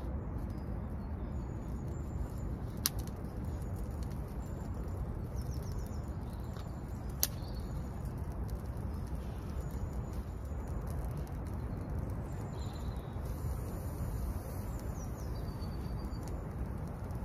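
Small woodland birds chirping faintly over a steady low rushing noise, with two sharp clicks, about three and seven seconds in.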